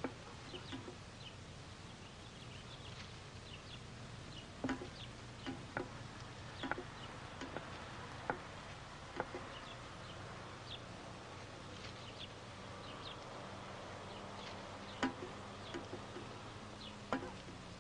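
Lipstick squeaking and tapping against mirror glass in short, scattered strokes, over a faint low steady hum.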